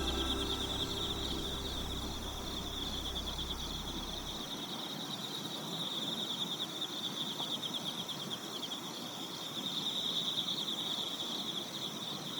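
A chorus of insects, crickets or similar, trilling steadily in a high-pitched, rapidly pulsing stream. A low hum fades out about four seconds in.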